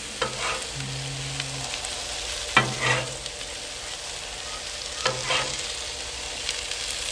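Shredded hash browns and cheese sizzling on a hot flat-top griddle while a metal spatula and a steel scraper fold them, with a handful of sharp scrapes and taps of the blades on the griddle plate.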